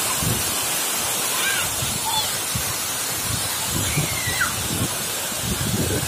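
Steady rush of a waterfall, with a few faint short high chirps over it.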